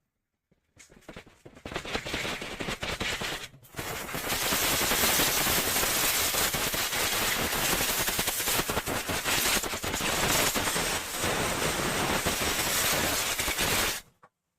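Compressed-air blowgun blowing out a motorcycle fuel-system part to clean it: a loud hiss of air that starts about a second in, stops briefly, then runs steadily before cutting off suddenly near the end.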